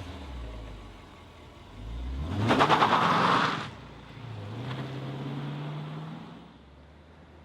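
Sports car engine and exhaust revving: the pitch climbs sharply about two seconds in to a loud peak and drops back, then a lighter, slowly rising rev follows and fades near the end.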